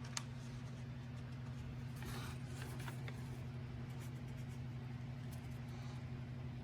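Quiet handling of a paper instruction manual: a brief rustle of pages about two seconds in and a few light clicks, over a steady low hum.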